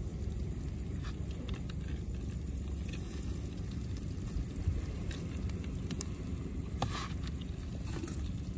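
Sea wind rumbling steadily on the microphone, with a few faint clicks scattered through it.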